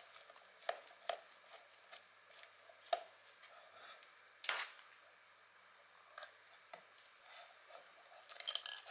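Faint, scattered clicks and taps of a small screwdriver working the screw of a plastic battery-compartment cover and of the hard plastic housing being handled, with one louder knock about halfway through. A quick run of clicks near the end as the metal cover is lifted off.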